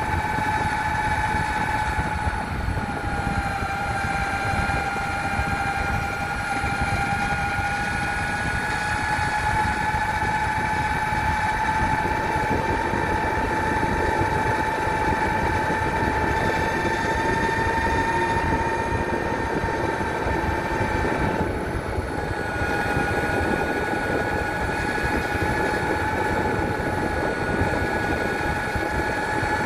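Electric off-road skateboard's motors whining steadily under way, over a rough rushing noise from the ride. The whine sags slightly in pitch a few seconds in and briefly fades about two-thirds of the way through before returning.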